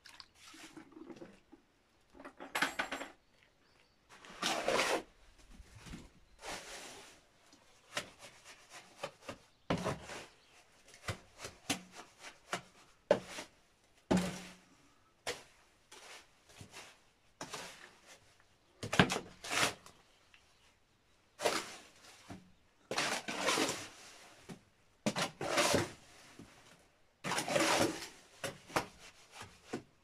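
Mortar of sharp and soft sand being mixed by hand in a wheelbarrow: repeated scraping strokes of the tool through the mix, about one every one to two seconds.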